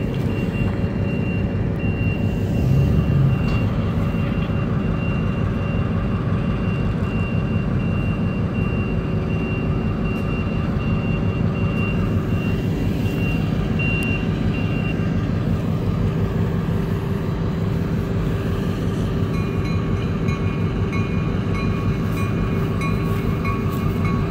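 Steady low engine rumble from a rail yard with a small switcher locomotive, with a thin high tone repeating through the first half. A pulsing, ringing high tone starts about twenty seconds in.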